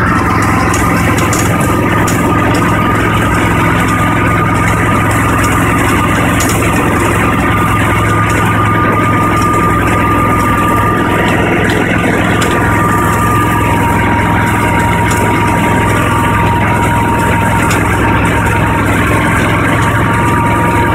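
Tracked eight-wheel Argo ATV's engine running steadily, with a constant high whine over its hum that sinks slightly in pitch and rises again near the end.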